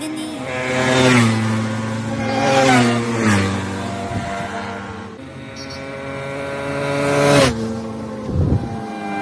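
Sport motorcycle accelerating hard through the gears: the engine note climbs, drops at each upshift and climbs again, several times over. It gets loudest as the bike passes close near the end, then the pitch falls away.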